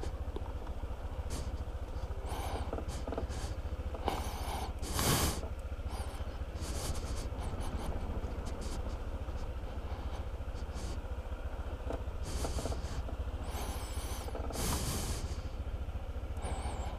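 Vehicle noise: a steady low rumble with short hissing bursts every few seconds, the loudest about five seconds in.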